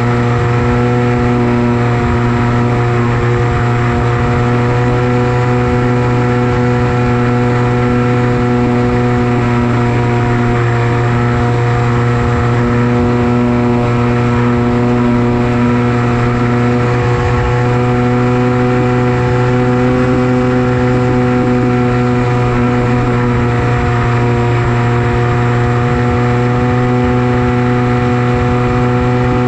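Steady buzzing drone of an FPV flying wing's electric motor and propeller in cruise, its pitch drifting slightly with throttle. Wind buffets the onboard microphone underneath.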